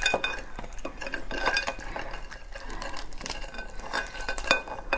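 A whole crab being pulled apart by hand: the shell and body crackling and snapping in many small irregular clicks, with one sharper snap about four and a half seconds in.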